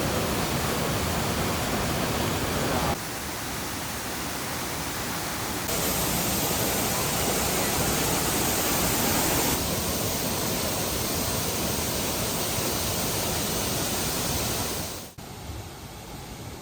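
Steady rushing roar of falling water from a waterfall, its tone and level changing abruptly a few times, then dropping quieter near the end.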